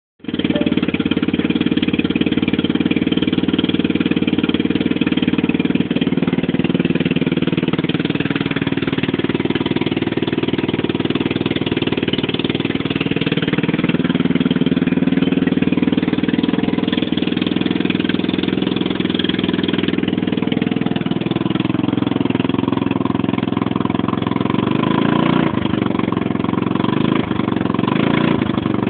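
150 cc scooter engine running with a loud noise the owner finds abnormal, its pitch drifting slowly up and down several times.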